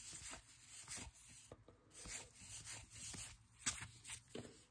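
Faint rubbing and sliding of baseball cards being flipped through by hand: a run of soft, irregular swipes, with a few sharper ones a little past the middle.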